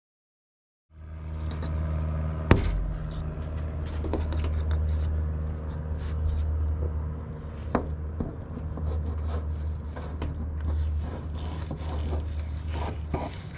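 Fillet knife scraping and tapping on a plastic cutting board as it separates the skin from a bluefish fillet, with a sharp knock about two and a half seconds in and another near eight seconds. A steady low mechanical hum runs underneath.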